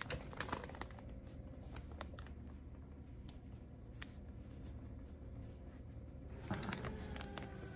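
Faint, scattered clicks and light rustling as a soft blanket and its packaging are handled after being cut open with scissors, over a low steady hum.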